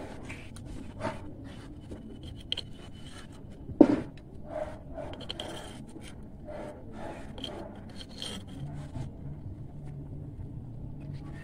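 Small metal spoon scraping the skin off boiled potatoes and knocking against miniature clay pots, in short irregular scrapes and clicks, with one sharp knock about four seconds in.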